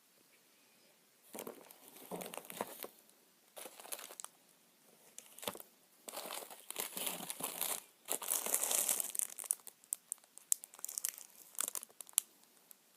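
Plastic snack packaging crinkling in irregular bursts as packets are handled and rummaged through, loudest and longest about two-thirds of the way in.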